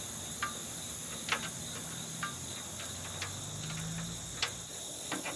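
Steady insect chorus of crickets, with short sharp metal clicks about once a second as the condenser's line fittings are worked by hand.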